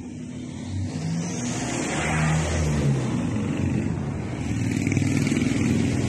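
A motor vehicle's engine running, swelling louder over the first couple of seconds and then holding steady.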